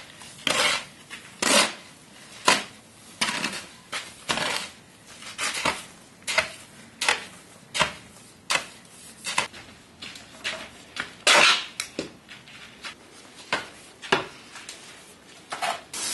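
A metal shovel repeatedly scraping across a concrete floor and flinging dry sand and earth onto a pile, in uneven strokes about once a second.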